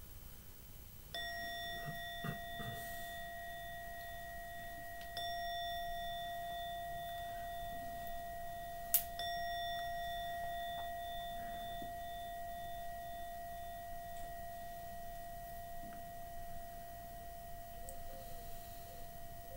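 A meditation bell or singing bowl struck three times, about four seconds apart, marking the start of a silent meditation period. Each strike adds a clear, steady ringing tone, and the sound keeps ringing and fades only slowly after the last one.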